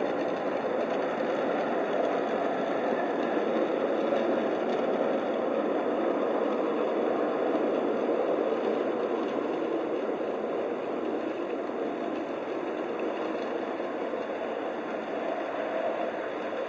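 A scratch-built 5-inch gauge ride-on miniature train running along its garden track: a steady rumble of wheels on rail, growing a little fainter after the middle as it pulls away.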